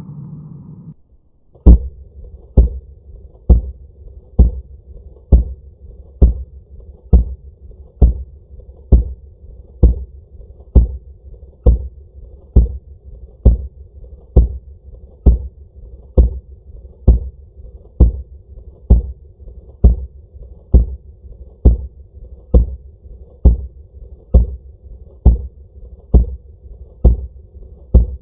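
Heckler & Koch MP5K 9mm submachine gun firing a full-auto burst, played back slowed to one-twelfth speed. Starting about a second and a half in, each shot is a deep, drawn-out thud, about one a second and evenly spaced, with a low hum between shots.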